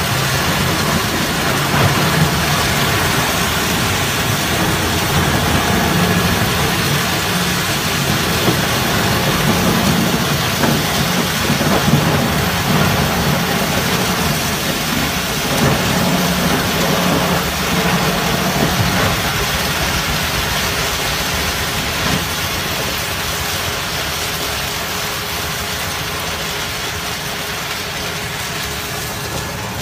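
Horizontal wood grinder shredding pallets: a steady heavy machine drone with a dense hiss of wood chips pouring off the discharge conveyor, growing a little quieter in the last third.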